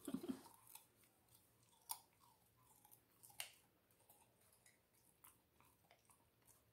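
Chow chow puppy crunching and chewing a raw carrot. Faint, irregular crunches: a few close together at the start, then single ones a second or two apart.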